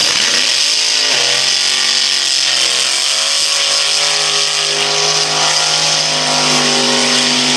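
Vintage drag car's engine revving hard and held at high revs through a burnout, with the rear tyres spinning and screeching. The revs climb in the first second, dip briefly about three seconds in, then hold steady.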